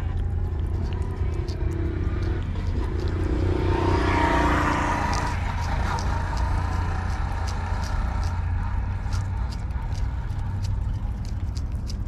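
A cat licking paste from a squeeze tube close to the microphone, a steady run of small wet clicks and smacks. A steady low rumble lies under it, and a broad rushing noise swells and fades about three to five seconds in.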